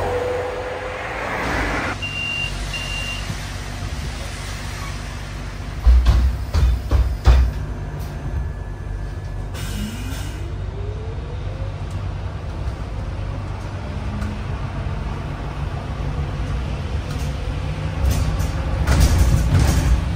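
Ride noise inside a Solaris trolleybus: a steady low rumble, with two short high beeps about two seconds in and a few heavy thumps around six seconds in. About ten seconds in, a rising whine is heard as the trolleybus picks up speed.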